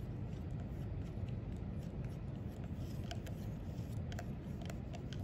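White plastic spoon stirring soapy water gently in a clear plastic cup, with a few light clicks as the spoon touches the cup, over steady room noise.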